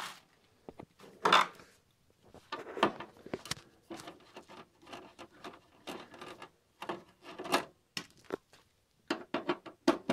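Irregular scrapes, clicks and light knocks of a screwdriver working at the screws that hold a circuit board inside a computer case.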